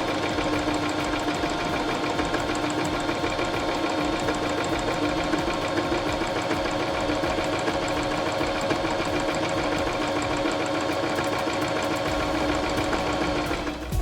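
Pfaff Element 1090s electric sewing machine running steadily at speed with a fast even rattle, stopping near the end.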